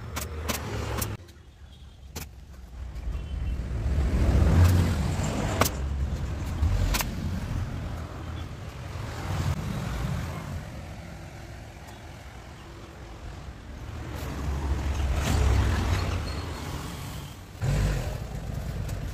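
Low rumble of passing road traffic, swelling and fading several times, with a few sharp clicks.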